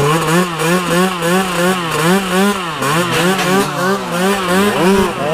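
Small two-stroke motorcycle engine revved in quick repeated throttle blips, its buzzing pitch rising and falling about twice a second.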